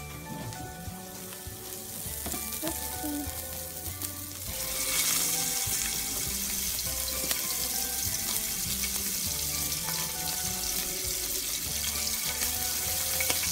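Shrimp skewers sizzling in hot oil in a stainless steel frying pan, the sizzle rising sharply about four and a half seconds in as they go into the oil. Background music with a steady beat plays throughout.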